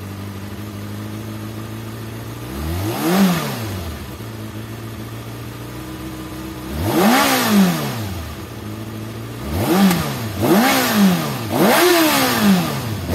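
2019 Kawasaki ZX-6R's 636 cc inline-four idling at standstill, then revved up and let fall back twice, about three seconds in and again around seven seconds. Near the end come four quick throttle blips in a row.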